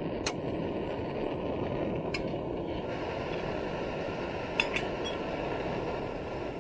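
Backpacking gas canister stove burner hissing steadily under a pot, with a few light metal clinks as the lid is set on the pot; near the end the hiss drops as the flame is turned down.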